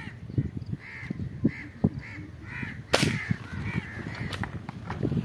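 Crows cawing over and over, with one sharp crack of an air rifle shot about three seconds in.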